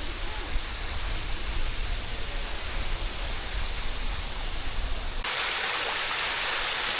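Rushing water of a river and its waterfalls, a steady noisy rush. About five seconds in it changes abruptly to a louder, brighter, more even rush, and the low rumble underneath drops away.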